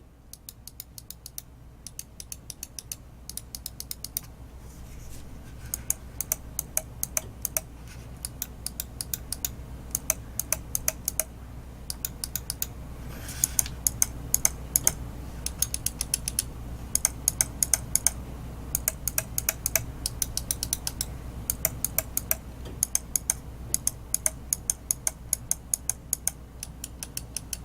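Gaming mouse buttons clicked over and over in quick runs, going back and forth between a Logitech G403, whose switches make less noise, and a Roccat EMP, whose left and right switches are loud and clacky. The EMP's clack is loudest on the button's return.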